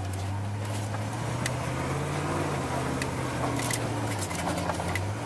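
Vehicle engine running steadily, heard from inside the cab as a low hum whose pitch rises slightly and falls back. A few light clicks are heard over it.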